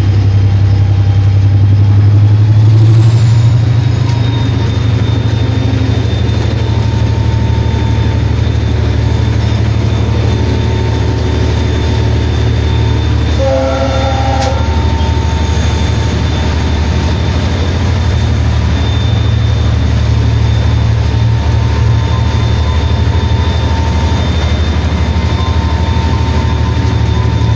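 Henschel diesel locomotive's engine running steadily, a loud low drone heard inside the cab, with a short pitched tone lasting about a second near the middle.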